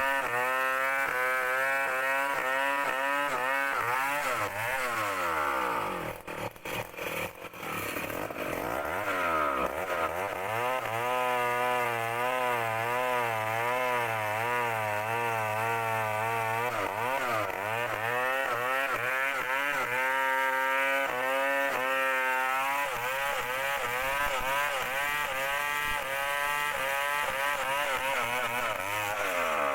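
Chainsaw running under load while making the back cut in a large trunk, its engine speed rising and falling as it cuts. About six seconds in it briefly drops off toward idle before revving back up.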